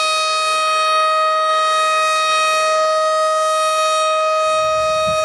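Outdoor tornado warning siren sounding one steady, held tone, really loud.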